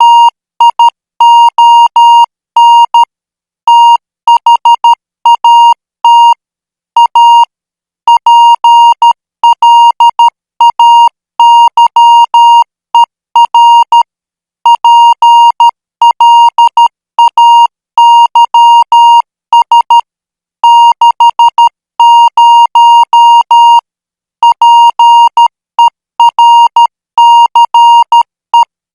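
Morse code practice tone near 1 kHz, keyed into short dots and longer dashes at about 12 words per minute. It is sent in groups of characters, with pauses of about a second between groups.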